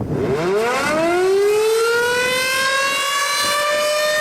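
Air raid siren winding up in pitch over about the first second and a half, then holding a steady high tone: the signal to evacuate immediately.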